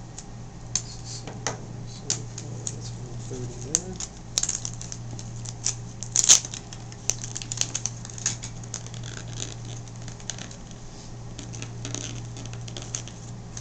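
A small knife blade picking and scraping at the seal of a stiff cardboard trading-card box, making irregular light clicks and scratches; the box is stuck shut, as if sealed with super glue.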